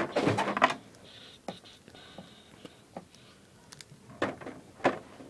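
Plastic action figures being handled and set in a toy wrestling ring: a quick cluster of clicks and knocks at the start, then a few scattered single taps.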